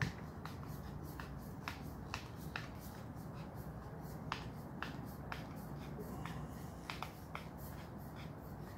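Sharp, irregular clicks, about two a second, over a low hum: hands working a loosened barrel shroud off an Air Venturi Avenger air rifle.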